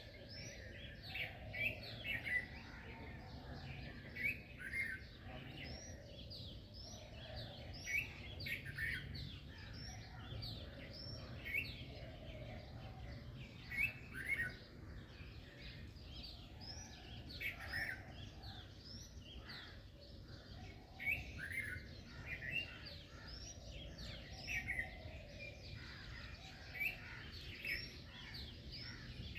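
A chorus of songbirds chirping: many short, quick chirps from several birds overlapping throughout, over a low steady background rumble.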